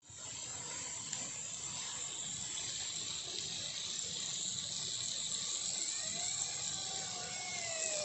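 Steady sizzling hiss from a clay pot of onion-tomato masala cooking on a wood-fired stone hearth. Near the end a long, falling animal call sounds over it.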